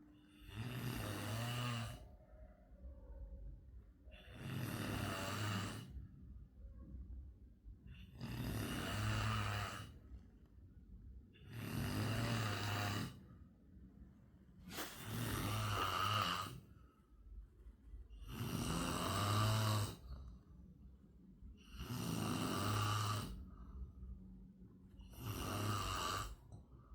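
Snoring in a steady rhythm: about eight snores roughly every three and a half seconds, each lasting one to two seconds, with quieter breathing between them.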